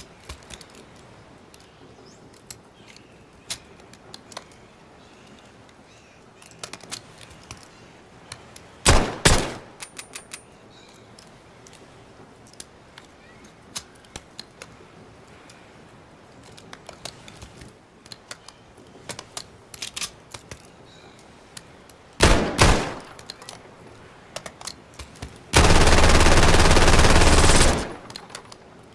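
Labra submachine gun firing: a short burst about nine seconds in, another a little past the middle, then a longer burst of about two seconds near the end, with light clicks and rattles between the bursts.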